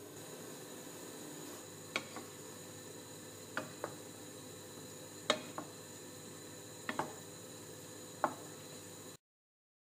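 Dum aloo gravy of potatoes in tomato masala simmering and reducing in a pan: a faint steady hiss with sharp pops about every one and a half seconds, most followed by a smaller second pop. The sound stops abruptly near the end.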